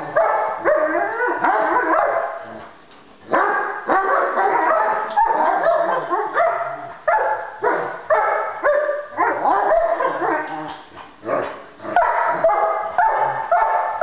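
Two Giant Schnauzers barking and yipping at each other in a rapid back-and-forth squabble of short, high calls, with a brief lull about three seconds in.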